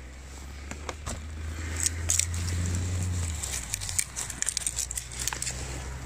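Dry twigs and brush crackling and snapping, a quick run of sharp clicks through the middle seconds, over a low steady rumble.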